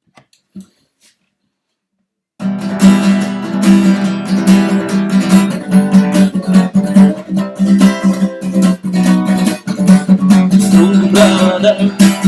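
Acoustic guitar strummed in a quick, driving gallop strum (бой галоп), starting about two and a half seconds in after a couple of faint clicks.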